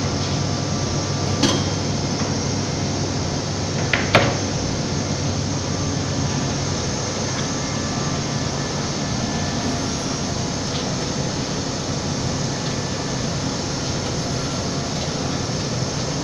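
Steady mechanical drone of a CNC router with automatic panel loading and unloading running, with two sharp clacks, about a second and a half and four seconds in.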